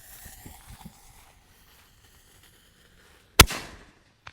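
A consumer 5-inch aerial firework shell launching from a mortar tube with a single loud, sharp bang a little over three seconds in, followed by a short tail and a small pop about a second later.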